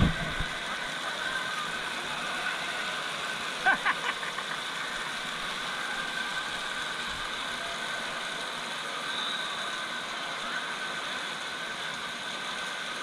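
Steady din of an indoor waterpark: a constant hiss and mechanical hum. A brief, louder pitched sound comes about four seconds in.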